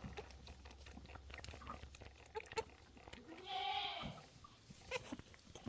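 A baby goat bleating once, briefly, about three and a half seconds in, with small clicking and smacking sounds as it sucks on a feeding bottle.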